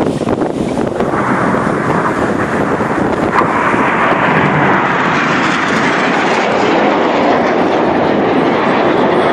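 Jet engine roar of Red Arrows BAE Hawk trainers passing low overhead, building about a second in and then holding loud and steady.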